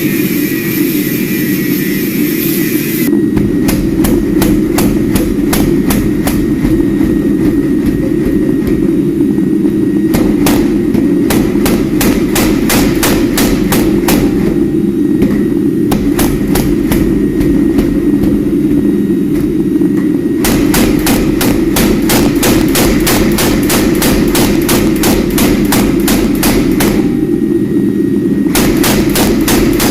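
A hammer striking hot steel on an anvil in runs of quick, evenly spaced blows, about three or four a second, with short pauses between runs, over a steady low drone. A loud hiss fills the first three seconds and then stops.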